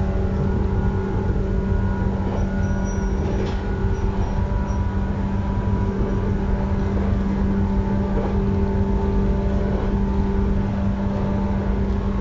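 JR East 115-series (1000 subseries) electric multiple unit running at speed, heard from inside the carriage. A steady low rumble from the wheels and rails carries a constant electrical hum.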